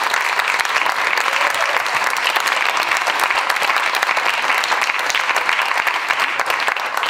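Audience applauding: many people clapping at once, a dense, steady clatter of hands.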